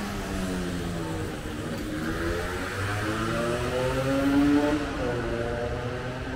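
City street traffic: a motor vehicle's engine accelerating, its pitch rising over a couple of seconds to a loudest point about four and a half seconds in, then dropping.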